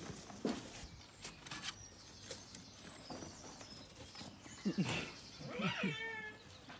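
Light clicks and scuffles, then about five seconds in a short animal call whose pitch wavers and falls.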